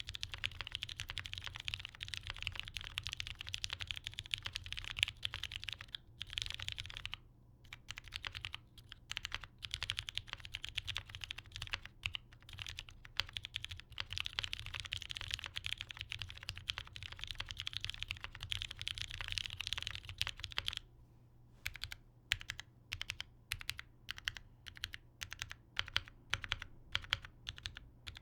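Typing on a Pangea Mini gasket-mount mechanical keyboard with lubed vintage Cherry MX Brown switches, an aluminum plate and GMK keycaps. It goes as fast continuous keystrokes with a couple of short pauses, then, from about two-thirds in, slower separate key presses.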